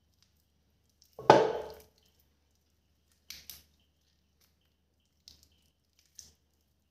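Wet squelches of a hand squeezing chicken drumsticks in a thick marinade in a stainless steel bowl. A louder thump comes about a second in, then a few short, softer squishes.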